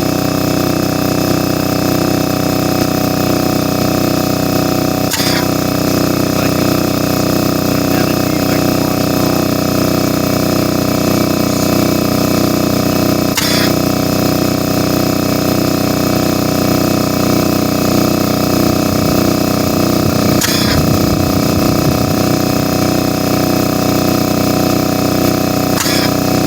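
Compressed-air airsoft mortar firing four sharp pops, several seconds apart, over the loud, steady drone of a running air compressor.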